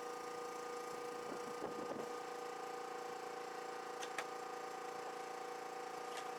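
A steady hum that holds the same pitch throughout, with some scrabbling noise early on and a few light clicks later.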